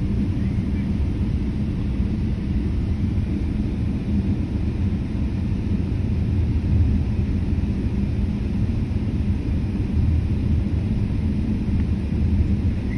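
Jet airliner moving along the runway, heard from inside the passenger cabin: a steady low rumble of engines and wheels.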